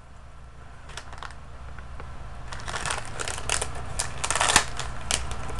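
A blind-bag packet crinkling and crackling as it is handled and opened, the crackles coming thicker and faster over the last few seconds.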